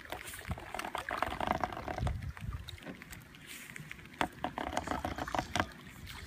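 Kayak paddle strokes through shallow floodwater: the blade dipping and pulling with splashing and dripping water, then a few sharp knocks near the end.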